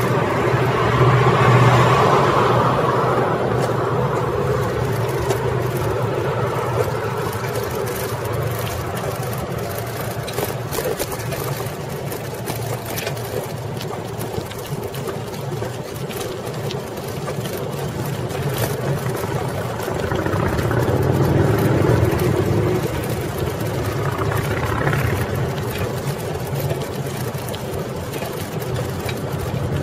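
Street traffic and road noise heard from a camera mounted on a moving bicycle: a steady rush with car engines in it, swelling as vehicles pass about two seconds in and again about twenty seconds in.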